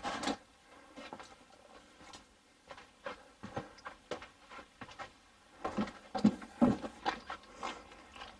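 Footsteps and handling knocks as someone walks, irregular light taps with a few heavier thuds about six to seven seconds in.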